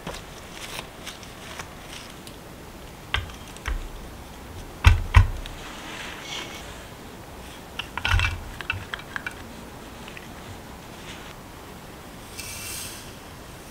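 Kitchen handling sounds: a few light knocks and soft thumps, loudest about five seconds in, as scone dough balls are set on a baking tray and butter and minced garlic go into a glass measuring jug. Near the end comes a short hiss of granulated sugar pouring in.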